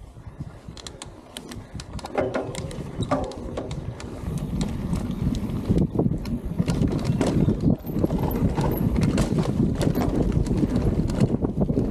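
Mountain bike rolling down a dirt trail: rapid clicks and rattles from the bike over the ground, with a low rumble that grows louder about four seconds in as the bike picks up speed.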